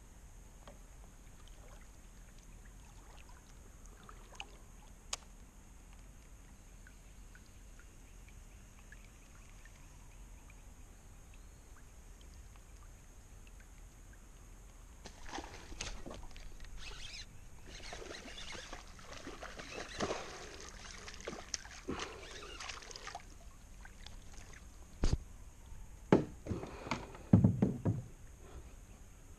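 Water splashing as a small bass is brought in to the kayak, then several sharp thumps near the end as the fish lands and flops on the plastic kayak deck.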